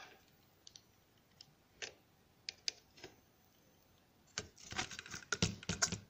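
Light clicks and taps of a laptop motherboard and its plastic and metal chassis parts being handled, a few separate clicks at first, then a dense run of clicking and rattling from about four seconds in.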